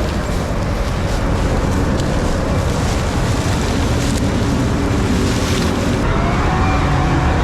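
Combine harvester running while harvesting corn: a steady machinery drone with a faint whine that rises slightly about six seconds in.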